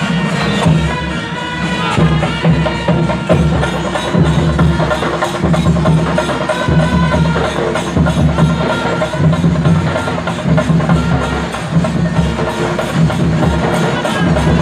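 Kerala festival percussion ensemble of chenda drums with cymbals beating a fast, dense rhythm, with a pitched melody sounding over the drumming.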